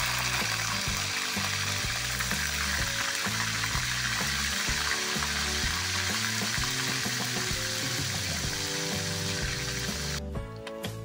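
Small whole fish deep-frying in hot oil in a metal wok: a dense, steady sizzle that cuts off abruptly about ten seconds in. Background music plays underneath.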